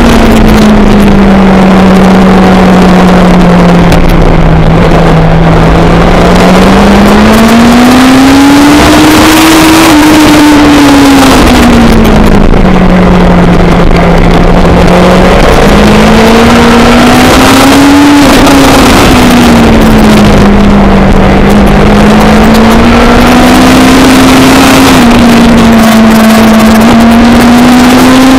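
A race car's engine running hard on track, its note rising and falling in long sweeps as it speeds up and slows down. The sound stays loud throughout, with steady rushing noise underneath.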